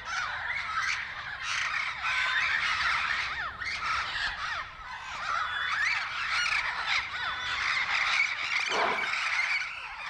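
A flock of blue-fronted Amazon parrots squawking, many harsh calls overlapping without a break.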